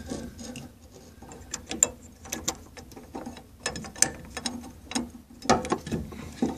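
Rusty metal fuel-pump retaining ring being worked loose and lifted off the pump's plastic flange: a run of irregular metallic clicks and scrapes, loudest near the end.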